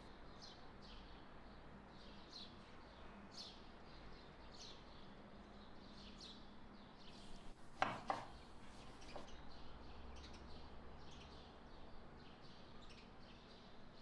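Faint chef's-knife cuts through tomato on a wooden cutting board, a short soft stroke about every second and quicker toward the end, with one sharper knock of the blade on the board about eight seconds in.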